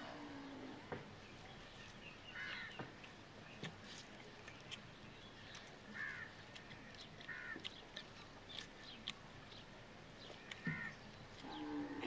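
Birds calling now and then: about five short calls a couple of seconds apart, with a few faint clicks in between.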